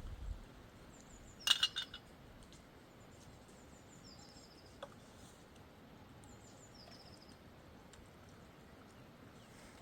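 Faint steady background with a sheep bell clanking briefly about a second and a half in. A small bird gives two short trilled calls later on.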